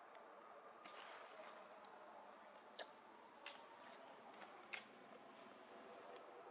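Near silence with a faint, steady, high-pitched insect drone, and a few faint clicks in the middle.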